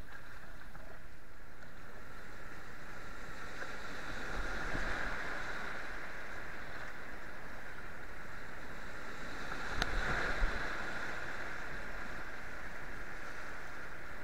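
Rushing whitewater of an artificial whitewater course heard from a kayak, swelling twice as the boat runs the drops, with one sharp knock about ten seconds in.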